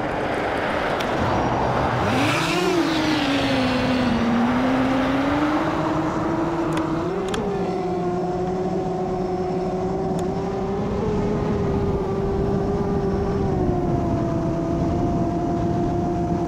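Motors and two-blade propellers of a Molecula FPV M7 FPV quadcopter throttling up for takeoff about two seconds in. The whine then holds fairly steady in flight, its pitch shifting a little with the throttle, over a rush of air noise.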